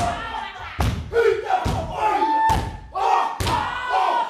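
Māori haka: a group of performers chanting and shouting in unison in a fierce, rhythmic call. Sharp slaps of hands on thighs and chest and stamps of feet keep the beat, landing every half-second to second.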